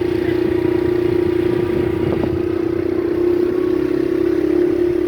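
Motorcycle engine running at a steady speed while riding, heard from on board as a constant engine drone with low rumble, rising a little in pitch near the end.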